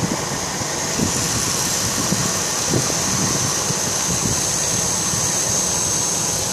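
Pantograph engraving machine's spindle motor running with a steady high whine, with a few soft knocks from the stylus arm being moved over the templates.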